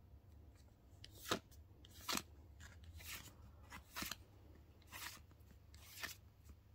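Pokémon trading cards sliding off one another as they are drawn one at a time from a hand-held stack: six short, crisp swishes, about one a second.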